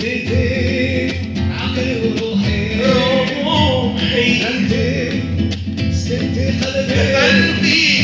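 Two men singing together to a strummed nylon-string classical guitar.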